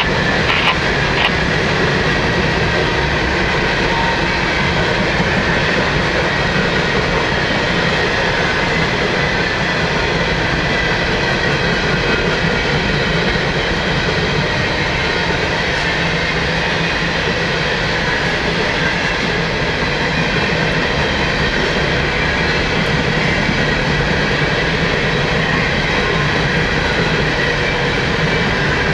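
A long train of empty coal hopper cars rolling past, a loud, steady rumble of wheels on rail.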